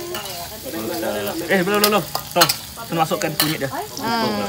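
Chopped shallots, garlic and ginger frying in oil in a wok: a sizzle, with a metal spatula stirring and scraping, and several sharp knocks against the pan.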